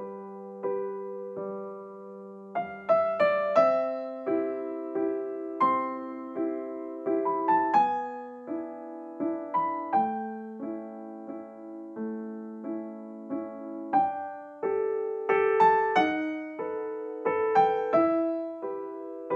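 Background piano music: a melody of struck notes over chords, each note fading after it sounds.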